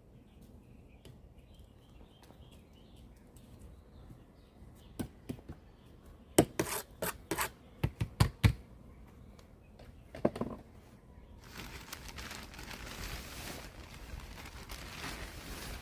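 Hands-on gardening work in a soil bed: a run of sharp knocks and scrapes around the middle, then from about two-thirds of the way in a steady, scratchy rustling.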